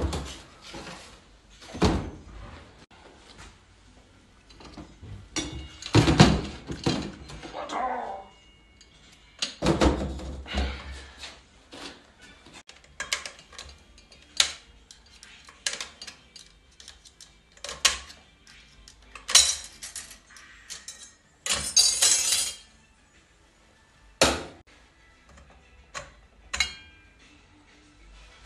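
Steel clutch drums, clutch plates and shafts from a ZF 6HP19 automatic transmission being handled and set down on a steel workbench: a string of separate clanks and knocks, some ringing briefly, with a longer metallic rattle of plates about three-quarters of the way through.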